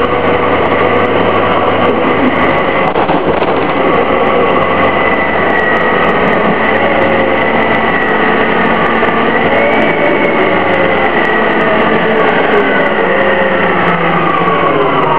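Detroit Diesel Series 50G four-cylinder natural-gas engine and ZF Ecomat HP592C automatic transmission of a 2004 Orion VII CNG transit bus, running under way. Whining tones slowly rise and fall in pitch over a steady engine drone.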